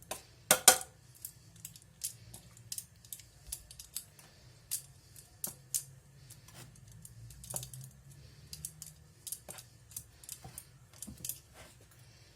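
Irregular light clicks and taps of chicken wings being turned and pressed in seasoned flour in a bowl, with a louder double knock about half a second in.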